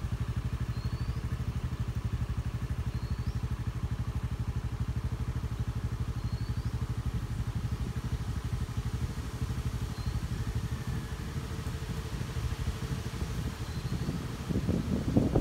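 A vehicle engine idling with a steady, fast, even pulse. A bird gives a short rising chirp about every three seconds over it.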